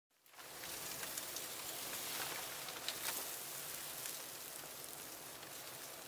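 Steady hiss of heavy snow falling in a blizzard, with a few faint ticks. It fades in from silence over the first half second.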